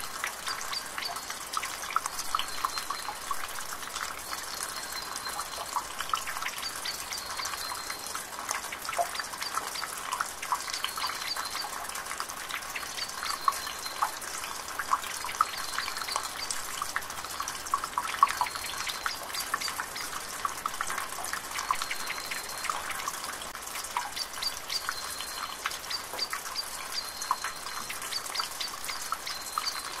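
A thin stream of water pouring steadily into water in a dark basin: a continuous splashing trickle with many small plops.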